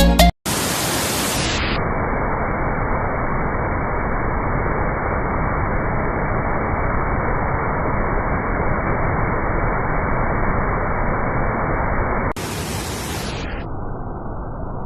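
Steady rushing roar of a waterfall. About twelve seconds in it drops a little and turns duller.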